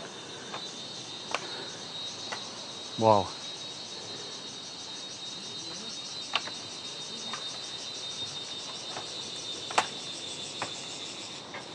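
A steady, finely pulsing chorus of insects, crickets or similar, with a few sharp clicks scattered through it, the loudest near the end.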